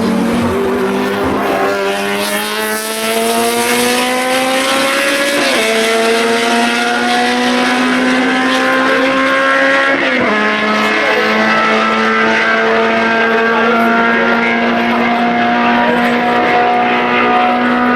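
Racing car engine accelerating hard under load, its pitch climbing through the gears. It drops sharply at two upshifts, about five and ten seconds in, then holds high and nearly steady.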